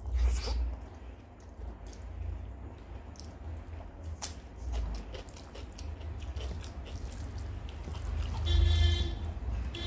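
Close-up wet chewing and mouth sounds of eating a handful of rice and greens, with soft squelching and clicks as the fingers mix food on the plate. A short run of steady tones comes in near the end.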